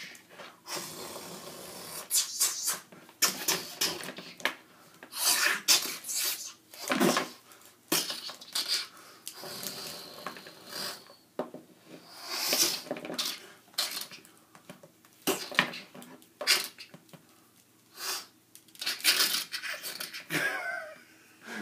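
Plastic action figures being handled, with irregular clicks, taps and rustles of hard plastic parts, among them a few breathy noise bursts.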